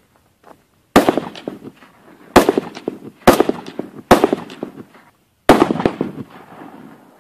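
Handgun shots: five sharp cracks spaced about a second apart, each trailing off in an echo.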